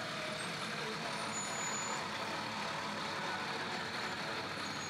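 Fire engine running as it rolls slowly past, a steady vehicle noise.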